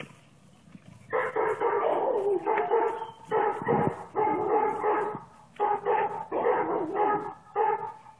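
Young dog barking repeatedly for a ball held just out of its reach, starting about a second in: the eager calling of a dog that badly wants the ball.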